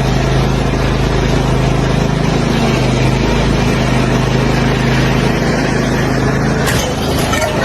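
A loud engine running steadily at a constant pitch, with a brief change about seven seconds in.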